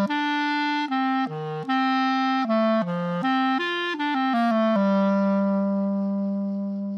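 A solo wind instrument plays a short melody: a run of quick notes going up and down, then one long low note held for about two seconds that slowly fades.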